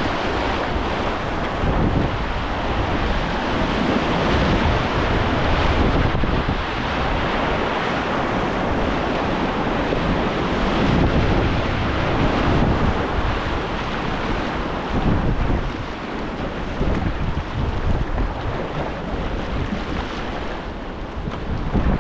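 Whitewater rapids rushing, a loud, surging roar of churning water, with wind buffeting the microphone in low gusts.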